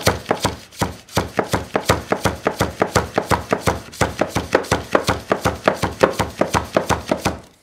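A rapid, even series of sharp taps, about five a second, that stops suddenly near the end.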